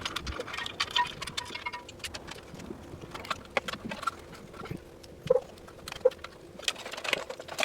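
Hands handling a wiring harness and parts on an electric dirt bike: scattered light clicks, rattles and rustles, with a short ringing tone about a second in and two sharper knocks past the middle.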